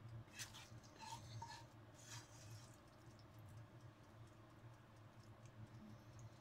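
Faint scrapes and light taps of a spoon in a frying pan as fried mushrooms are scooped out onto a plate, mostly in the first two seconds, over a low steady hum.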